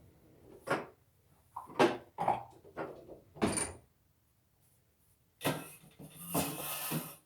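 Kitchen handling noises: a handful of short knocks and bumps like cupboards or doors in the first few seconds, then a longer rustling, scraping clatter near the end.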